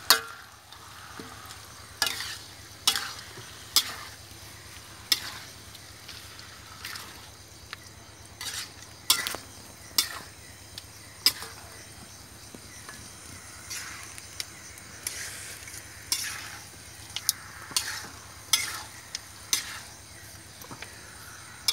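Chopped squirrel meat frying in spice paste in a metal wok with a steady sizzle. It is stirred with a metal spatula that scrapes and clanks against the pan at irregular moments, about once a second.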